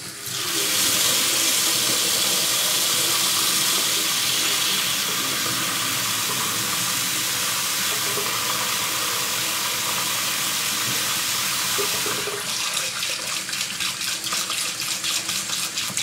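Kitchen mixer tap turned on, water running steadily into a stainless steel sink and splashing over a hand held in the stream. From about twelve seconds in the flow sounds choppier and more splashy.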